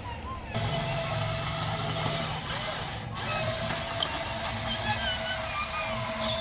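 Electric motors of a Huina 1594 RC excavator running, a steady whine over a low buzz that starts about half a second in.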